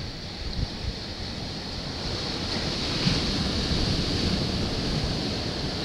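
Ocean surf washing over the rocks, with wind buffeting the microphone; the surf swells louder about two seconds in.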